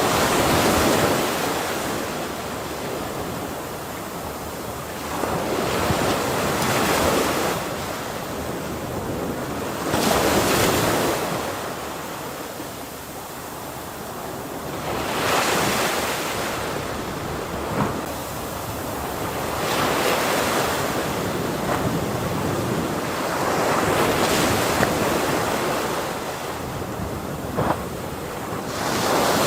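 Ocean waves breaking on shore, a rush of surf that swells and falls back about every four to five seconds.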